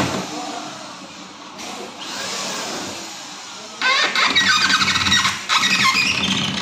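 Cordless drill/driver driving screws into a wooden frame: two loud bursts of rapid rattling, the first about four seconds in and the second after a short pause.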